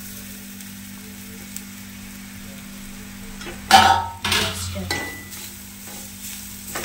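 Steel ladle stirring and scraping grated coconut and fried spices around an aluminium kadai over a low, steady sizzle; the loudest scraping and clattering strokes come about four to five seconds in, with one more near the end.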